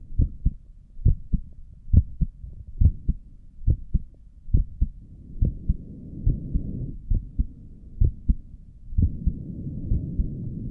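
A resting human heartbeat heard through a stethoscope: steady paired lub-dub thumps at about 70 beats a minute. A soft rushing noise rises under the beats twice, about five seconds in and again about nine seconds in.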